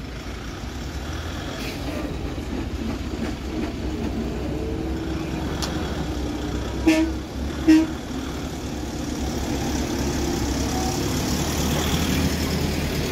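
Heavy truck engine running as a lorry climbs the hairpin, slowly growing louder as it comes closer, with two short horn toots a little under a second apart about halfway through.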